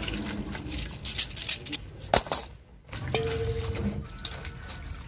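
A tapered roller bearing being scrubbed by hand in a metal pan of soapy water: splashing and sloshing with sharp clinks of the steel bearing against the pan and in the hands.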